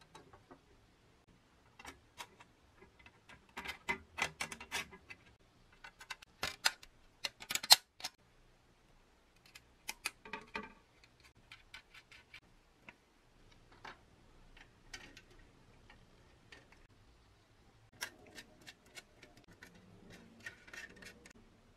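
Light clicks and taps of painted sheet-metal toy aeroplane parts and small brass nuts and bolts being handled and fitted together. They come in scattered clusters, loudest about a third of the way in.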